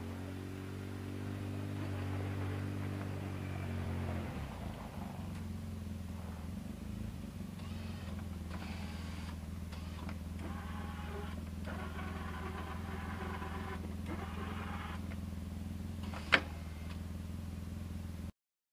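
Side-by-side UTV engine running, rising briefly in the first few seconds, then settling to a steady idle. A higher whirring comes and goes in the middle, and a single sharp click near the end is the loudest sound.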